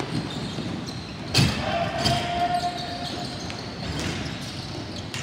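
Ball hockey play: sticks and the ball knocking, with one loud sharp bang about a second and a half in and a smaller knock just after, then a short held tone.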